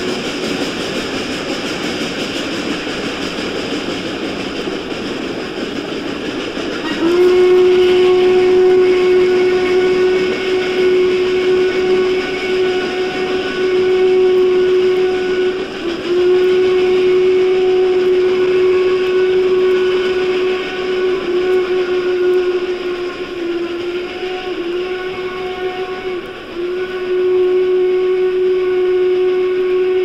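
Steam locomotive whistle blowing one long, steady single-pitched blast that starts about seven seconds in, briefly dipping and breaking a few times in the second half. Before it, a steady rushing noise from the train.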